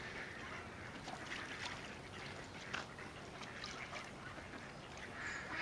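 Mallard ducks giving scattered short calls over a steady hiss of outdoor background noise.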